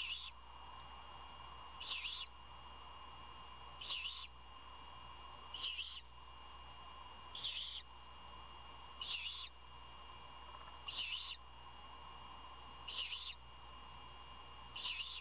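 Great horned owlet giving short, raspy, high-pitched begging screeches, about one every two seconds, nine in all. A steady faint hum runs underneath.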